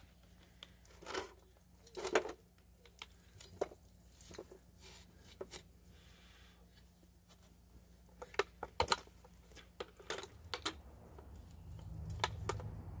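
Casting sand and clumps sliding and pattering out of a tipped metal pail onto a metal tray, with scattered clinks and knocks from the pail and its wire handle: the shake-out of a freshly poured lost foam casting. A low rushing builds over the last few seconds as more sand pours out.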